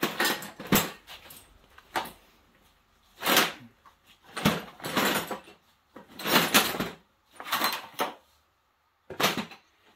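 Metal tools clattering and rattling as someone rummages for a tool, in about seven short bursts with quiet gaps between them.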